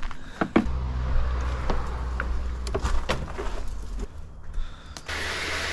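Several sharp knocks and clatters over a steady low hum. About five seconds in, a steady rush of running water starts.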